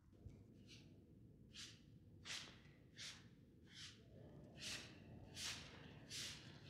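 Brooms sweeping a floor: a regular series of soft swishing strokes, about one every 0.7 seconds, over a low steady hum.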